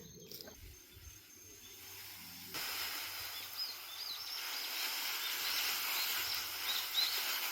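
Steady outdoor hiss of open-air ambience that comes in suddenly about two and a half seconds in, with several short, high bird chirps over it.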